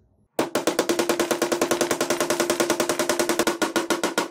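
Hand-held power tool with a drill-type metal head cutting a recess into a wooden block. It starts suddenly about half a second in and runs loud and steady, a rapid chatter of about ten beats a second over a steady hum.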